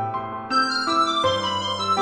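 Background music played on a keyboard, with held chords that change twice.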